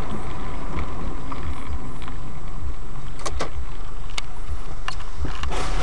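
Road and engine noise inside a moving car, picked up by a dashcam: a steady low rumble, with a few sharp clicks about three to four seconds in.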